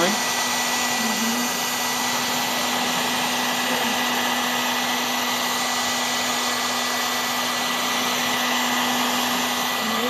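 Steady whirring of an electric hot-air blower such as a heat gun, running continuously with a constant hum and a faint thin whistle, drying freshly sprayed crystal-effect paint chemical.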